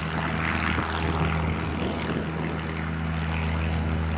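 Cessna F172L Skyhawk's piston engine and propeller running steadily at takeoff power during the takeoff roll, a constant low drone.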